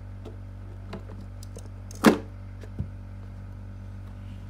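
Apple Watch's stiff white paperboard packaging being handled: one sharp knock about two seconds in, with a few faint taps before and after, over a steady low hum.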